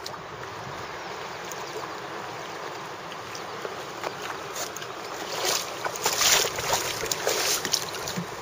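Steady rush of water and wind around a Kawasaki STX900 jet ski on the water, with sharper splashes that come more often from about halfway through.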